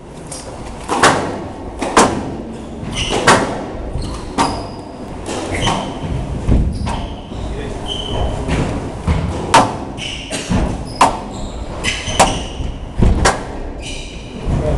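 Squash rally: sharp cracks of the racket striking the ball and the ball hitting the court walls, roughly one a second, ringing in a large hall, with short squeaks of shoes on the court floor between them.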